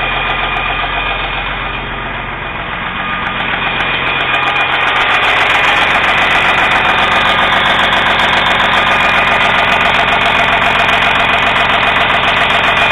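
Kenworth W900L's Detroit diesel engine idling steadily, still warming up about a minute after a cold start; it dips a little in loudness about two seconds in, then holds steady.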